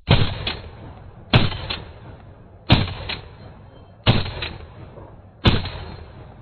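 Five rifle shots from a FN FAL in 7.62×51mm NATO, fired semi-automatically at an even pace about one and a third seconds apart. Each sharp report is followed by a fainter second crack about half a second later and a fading tail.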